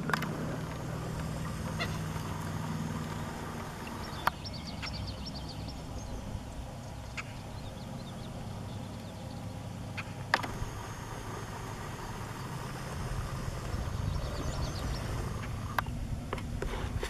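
Birds calling from the reeds along a calm river, including a quick run of high notes about four seconds in, over a steady low background. A few sharp knocks stand out, the loudest about four and ten seconds in.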